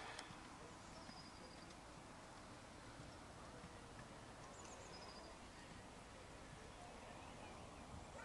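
Near silence: faint outdoor background with a few faint, short high bird chirps.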